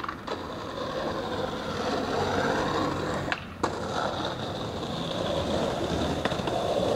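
Skateboard wheels rolling on pavement. About three and a half seconds in there is a sharp pop, then the board grinds along a concrete ledge, the grinding noise slowly growing louder.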